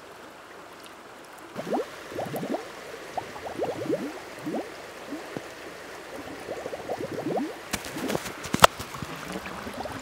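Trapped air bubbling out of the submerged end of a plastic drainage pipe in a river: a string of quick gurgles, each rising in pitch, as the water flow purges air from the pipe. Over a steady stream hiss, with a couple of sharp clicks about eight seconds in.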